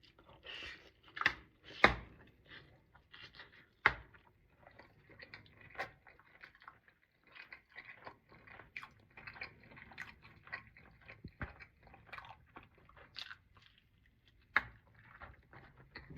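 A person biting into and chewing hot-sauced smoked oxtail close to the microphone: irregular wet mouth smacks and crunches. There are a few louder sharp clicks about a second and two seconds in, and again near the end.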